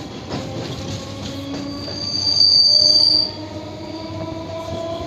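Electric suburban local train (EMU) running, with a steady whine that slowly rises in pitch. About two seconds in, a high-pitched wheel squeal starts, lasts about a second and a half, and is the loudest part.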